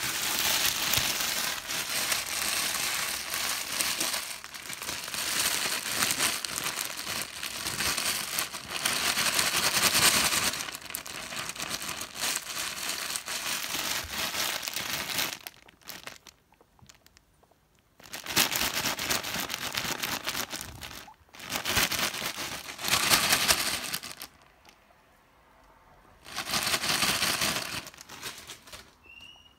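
A bag being crinkled: a continuous crackling for about fifteen seconds, then three shorter bouts separated by quiet pauses.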